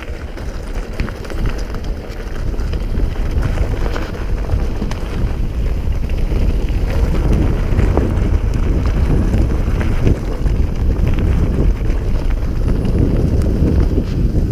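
Mountain bike descending a rough forest trail at speed: wind rumbling on the microphone, with tyres rolling over dirt and leaves and the bike rattling over bumps. It gets louder about two seconds in as the bike picks up speed.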